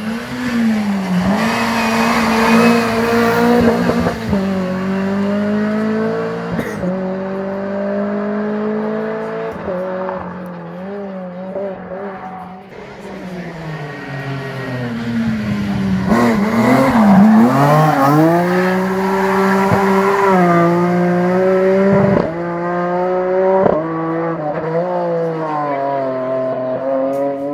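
Rally car engine driven hard on a stage. The pitch climbs and drops again and again as it changes gear and lifts off, with a few sharp cracks along the way. It grows louder from about halfway through as the car approaches.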